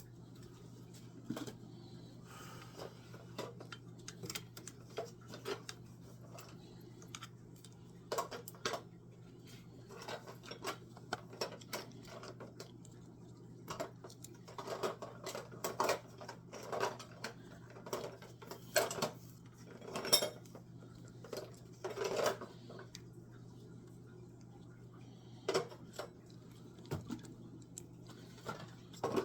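Small hard objects, likely metal tools and parts, clinking and clattering as they are handled and set down. The taps and knocks come scattered and are busiest through the middle, over a steady low hum.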